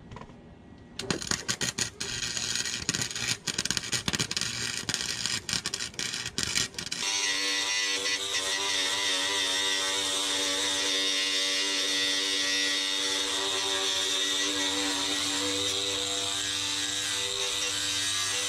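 Welding arc crackling and spitting in irregular bursts for about six seconds. Then, from about seven seconds in, a steady power-tool motor whine with a hiss takes over.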